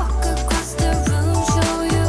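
Background music: an upbeat pop/R&B track with a steady beat and deep bass.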